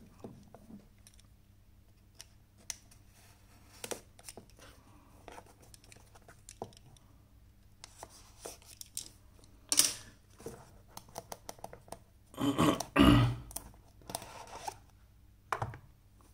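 Utility knife blade scratching and ticking as it slits the clear seal stickers on a small cardboard box. This is followed by louder rustling and scraping of the cardboard lid being worked off, loudest about twelve to thirteen seconds in.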